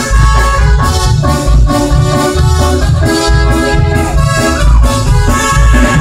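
Loud Latin dance music, accordion-led, over a heavy, steady bass beat.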